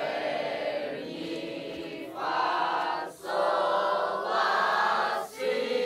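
A large group of young and adult voices singing together a cappella in unison, holding long notes with short breaks between them, a new note beginning about every one to two seconds.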